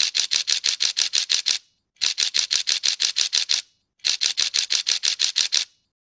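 Camera shutter firing in continuous bursts: three runs of about a dozen rapid clicks each, roughly eight a second, with short pauses between.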